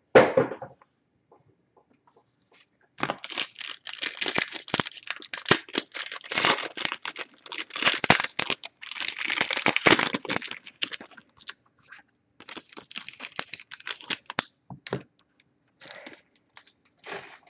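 Plastic wrapper being torn open and crinkled off a 2020 Five Star baseball card pack: a dense crackling that starts about three seconds in, then thins to scattered crinkles.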